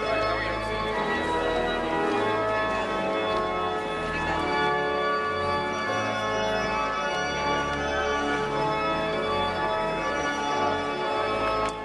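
Church organ playing the recessional: sustained chords over a bass line that moves every second or so.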